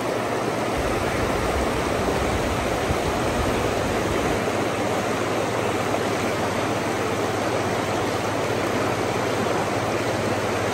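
A shallow river rushing over a rocky riffle: a steady wash of flowing water.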